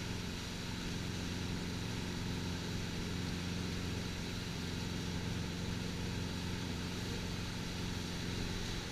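A MasterCraft wake boat's inboard engine running steadily under way, a low even drone, over the rush of the churning wake behind the boat.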